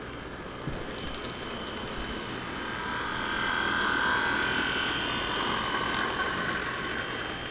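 HO scale Athearn diesel locomotives running on model track: an electric motor whine with wheel and gear noise that swells as the locomotives pass, loudest about four seconds in.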